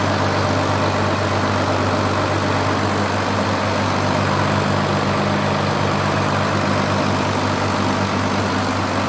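Engine and compressor machinery on a test run, running steadily at a constant speed with an even low hum.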